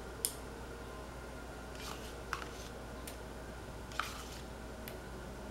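A spoon tapping and clicking lightly against thin plastic cups as sour cream is dolloped into them: a handful of short, separate clicks over a faint steady hum.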